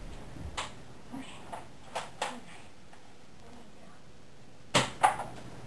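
Toy foam-dart (Nerf) blaster being worked: a few light clicks, then two sharp clacks close together near the end.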